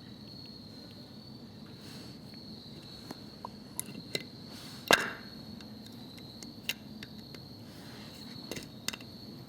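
A few sharp knocks and clicks of hard objects being handled, the loudest about five seconds in, over a steady high-pitched chirr of crickets.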